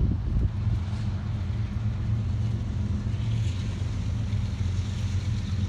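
FES 16S rotary screw compressor package with its 200 HP motor running, a steady low hum over a constant machine noise.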